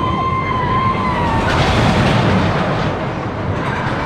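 Steel roller coaster train running along its track, a rumble that builds to a peak about two seconds in. A high, slightly falling held tone sounds over it for the first second and a half.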